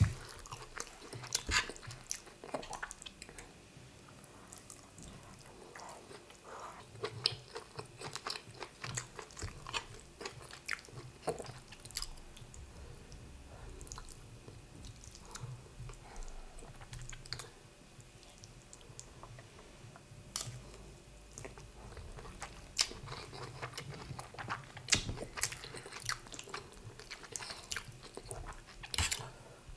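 Close-miked chewing of a mouthful of rice and egusi soup, with many scattered sharp clicks throughout.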